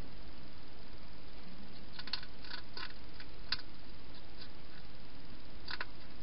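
Hedgehog eating at a food bowl: a few short, crisp crunching clicks in a quick cluster about two seconds in, and again near the end, over steady hiss.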